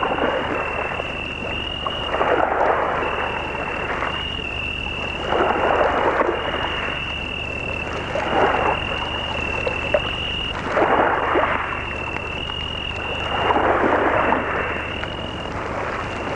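Night ambience: a high, thin trill from a night chorus running almost without a break, with a swell of rushing noise every two to three seconds.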